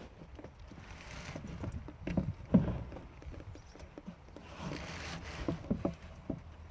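Old engine oil running from the Fiat Hitachi FH150 excavator's sump drain into a 5-gallon drum, with scattered light knocks and taps.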